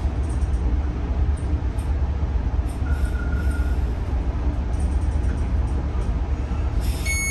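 Stadler FLIRT diesel multiple unit commuter train in motion, heard from inside the car: a steady low rumble of the running gear and wheels on the rails, with a faint brief whine about three seconds in.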